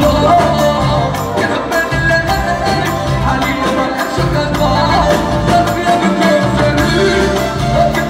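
Live raï band music from violins, darbuka, drum kit and keyboard, played through loudspeakers, with a male singer singing into a microphone over a steady beat.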